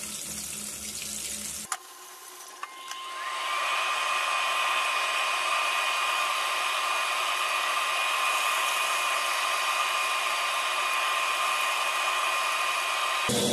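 Chicken thigh cutlets and strips frying in oil, a steady sizzling hiss. About three seconds in, a steady whine rises in pitch as it starts up and then runs on beneath the hiss.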